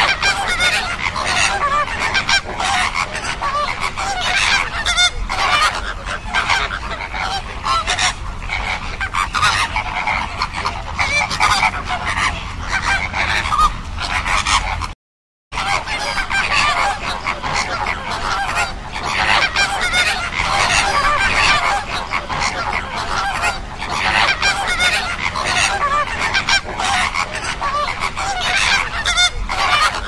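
A flock of flamingos honking: a dense chorus of many overlapping goose-like calls, which breaks off for about half a second midway and then carries on.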